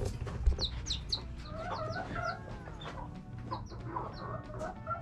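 Bantam chicks peeping in many short, high, falling notes, with a hen clucking lower and a soft bump about half a second in.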